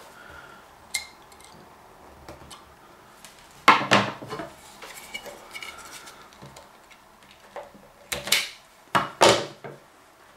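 Small hand tools and metal parts handled against a wooden board on a tabletop: a scatter of sharp knocks and clinks, the loudest about four seconds in and three more near the end.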